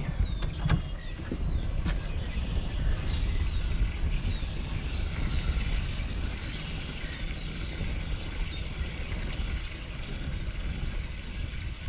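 Steady low rumble of wind and water around an anchored fishing boat, with short high chirps coming and going throughout. A few light knocks in the first two seconds.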